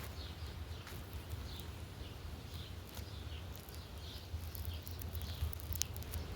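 A small bird chirping repeatedly in short, high, falling notes, about one or two a second, over a low outdoor rumble.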